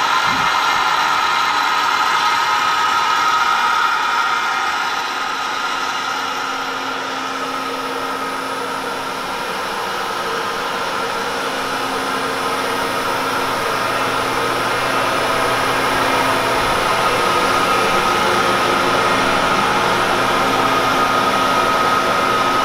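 Citizen L20 CNC Swiss-type screw machine running: a steady mechanical hum with a high, unbroken whine.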